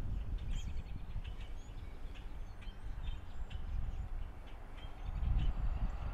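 Outdoor background: scattered faint bird chirps over a steady low rumble that grows louder near the end.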